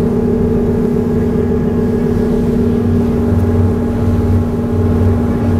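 The John J. Harvey fireboat's diesel engines running steadily: a loud, even drone with a hum, and a slow throb in its lowest note during the second half.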